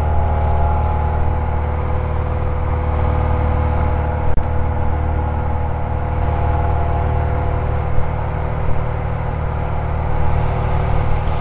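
Cabin noise of a 1957 Cessna 180 in flight: its 230-horsepower Continental O-470 six-cylinder engine and propeller drone steadily at high power.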